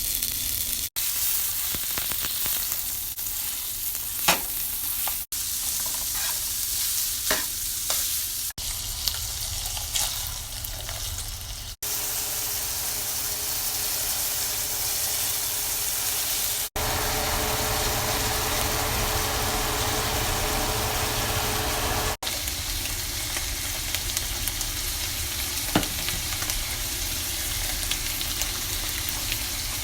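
Food sizzling in a hot pan while it is stirred, with occasional clicks of a utensil against the pan. The sound breaks off abruptly several times where short clips are joined.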